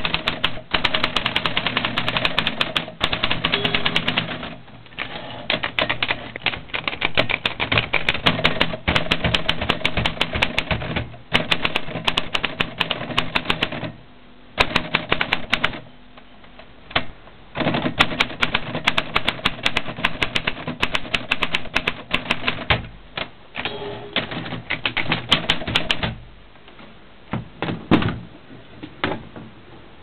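1963 Olympia SM-4 portable manual typewriter being typed on: fast runs of key strikes, the typebars clacking against the platen, in bursts with short pauses. Near the end only a few separate knocks.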